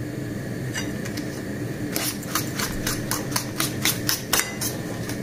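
A kitchen utensil clicking rapidly against a mixing bowl as cookie dough ingredients are stirred, about five clicks a second from about two seconds in, over a steady low hum.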